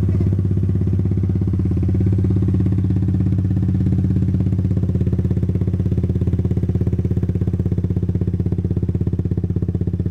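Yamaha Zuma 125 scooter's single-cylinder four-stroke engine running steadily through a Two Brothers aftermarket exhaust, a loud even pulsing exhaust note with no revving.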